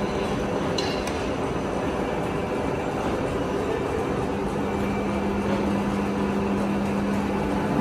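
Vertical turret lathe running with a steady machine drone. There are a couple of light metal clinks near the start, and a steady hum joins about four seconds in.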